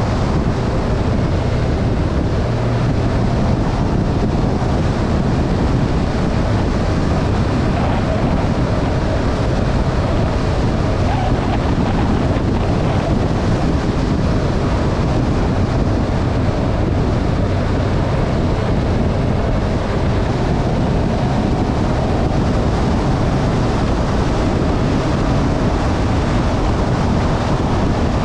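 Motorbike riding at a steady speed, with heavy wind rush on the microphone over the low, steady drone of the engine.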